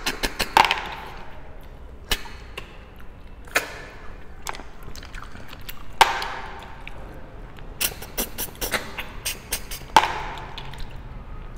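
Snails being sucked and slurped out of their shells, with three sharper slurps standing out (about half a second in, midway, and near the end). Many small clicks of shells and fingers against ceramic bowls and a plastic plate run between them.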